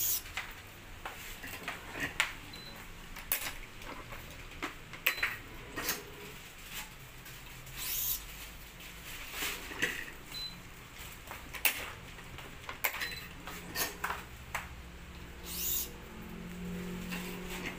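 Yonex BG65 Titanium badminton string being woven and pulled through the cross strings of a racket on a stringing machine: repeated quick swishing zips of string drawn through, and scattered sharp clicks and taps. A low hum starts near the end.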